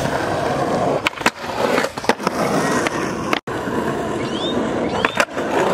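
Skateboard wheels rolling over a concrete skatepark surface, with several sharp clacks of the board about a second in, again about two seconds in and near the end. The sound drops out for an instant a little past halfway.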